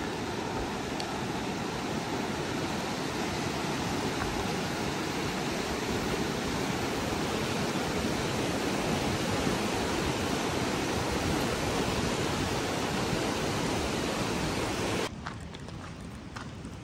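Animas River whitewater rushing below a wooden footbridge: a steady, loud roar of fast-flowing water. It cuts off suddenly near the end, leaving a much quieter background with a few faint clicks.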